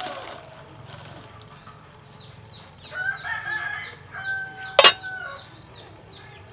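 A rooster crowing, one long call starting about three seconds in, over high chirps that repeat about three times a second. Near the end of the call comes one sharp clank, the aluminium lid being set on the cooking pot.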